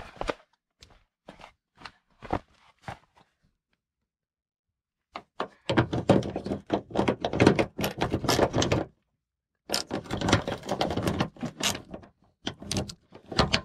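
Hand socket ratchet clicking as it turns a fender bolt out, in two long runs of rapid clicks after a few separate knocks of the tool being fitted.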